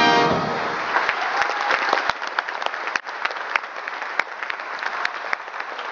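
Theatre audience applauding, with the band's final held chord dying away at the very start. A scatter of sharp single claps stands out from the general clapping.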